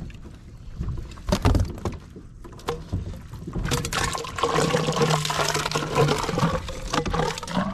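Water pouring and sloshing for the second half, after a few sharp knocks from gear being handled on the kayak.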